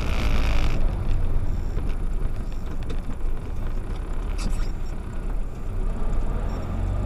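Steady low rumble of a moving car's engine and road noise, heard inside the dash-cam car. There is a brief higher sound in the first second and a short click about four and a half seconds in.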